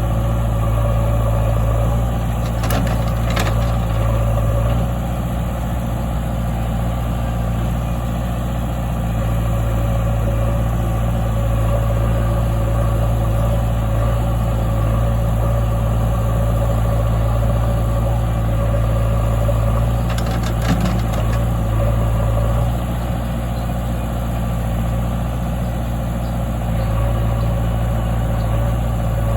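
Heavy diesel machinery engine running steadily, with brief clatter twice: about three seconds in and again around twenty seconds in.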